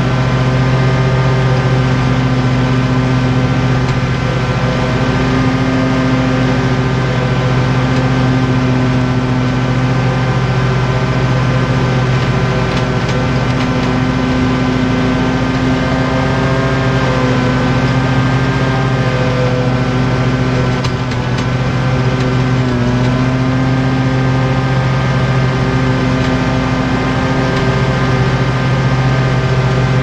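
Commercial mower engine running steadily at full throttle while cutting grass, its pitch sagging briefly about twenty seconds in.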